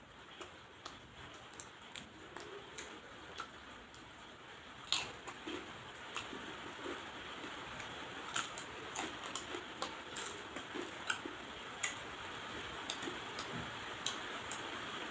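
Cooked crab shells cracking and snapping as they are broken apart by hand and bitten, in sharp irregular clicks, the loudest about five seconds in. A steady hiss underneath grows slowly louder.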